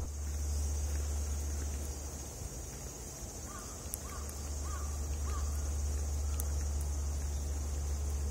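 A crow caws four times in quick succession midway through, over a steady high hiss and a steady low rumble of outdoor background.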